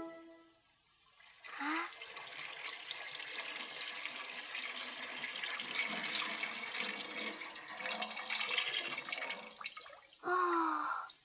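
Liquid pouring or splashing in a steady rush for about eight seconds. It is bracketed by two short calls with a falling pitch, one near the start and one near the end.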